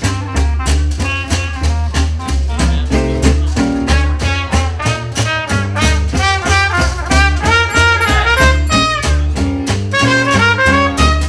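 Upbeat swing-jazz music with horns, a walking bass line and a steady drum beat.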